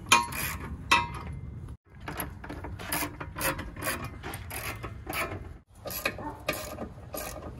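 Socket ratchet wrench clicking in quick runs as bolts are turned into the vehicle frame to mount a tow hitch, with a few metallic clinks of the bolts being handled near the start.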